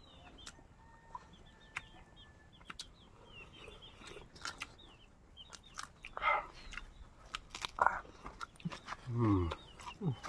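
Domestic chickens clucking and calling, with three louder calls in the second half, the last one falling in pitch. Short high chirps and scattered clicks come in between.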